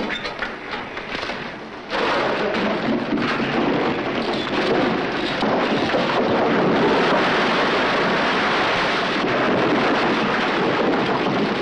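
A load of coal pouring down a chute and piling up, a loud, continuous rattling rush that starts suddenly about two seconds in and keeps going.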